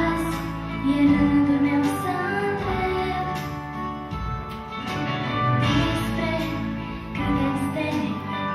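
A young female singer sings a Romanian-language song into a microphone over instrumental accompaniment.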